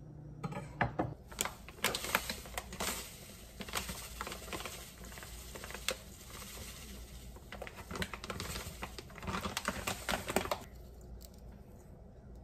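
Rapid light clicks and scrapes of a metal spoon against seasoning containers and a stainless steel bowl as chili flakes and salt are spooned in. The clicking stops about ten seconds in.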